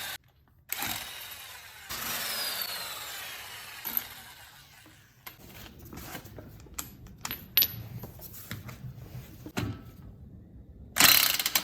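Metal tools and parts clinking and rattling during work on a car's front wheel hub, with several sharp knocks. Near the start there is a stretch of steady rushing noise that fades out over a few seconds.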